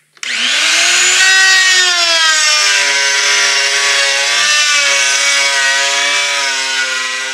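Handheld router with a flush-trim bit switched on, its whine rising as the motor spins up, then running steadily while it cuts 3/8 inch plywood, the pitch wavering slightly under the cut.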